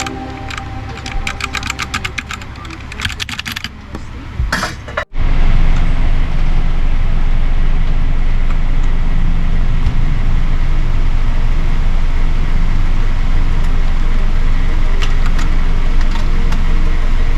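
Typing on a Redragon K606 mechanical keyboard with brown switches, quick runs of key clicks, for about five seconds. It cuts off suddenly and gives way to a loud, steady noise.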